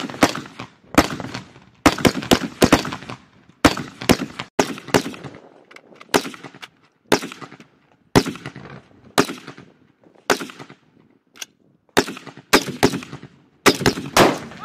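Semi-automatic carbine fire: sharp rifle shots, some single and some in quick strings of two to five, each followed by a short echo, with a pause of about a second between groups.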